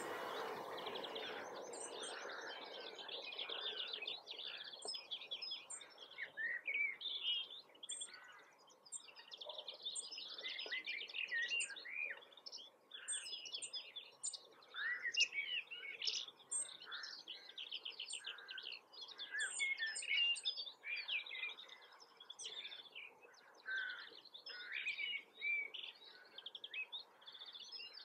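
Several songbirds chirping and singing in a busy, unbroken chorus of short chirps, trills and whistles. A hiss fades out over the first couple of seconds.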